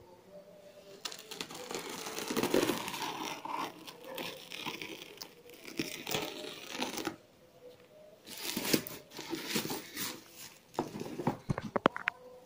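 Clear plastic wrapping around a parcel being cut and torn open by hand, crinkling and rustling in bursts with a short pause partway through. A run of sharp crackles comes near the end.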